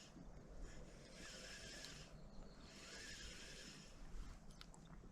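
Near silence: faint outdoor background hiss that swells and fades, with a few faint clicks near the end.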